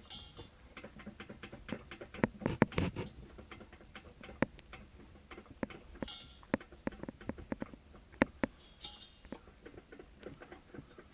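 Cooling fan on a Mitsubishi 360's ME24 engine being rocked back and forth by hand, giving an irregular metallic clatter of loose clicks. The owner suspects this play in the fan may be behind the piston-knock-like noise the engine makes.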